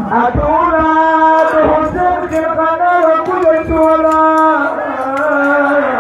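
A man chanting a mourning lament in long, held, wavering notes, with a few low thumps underneath.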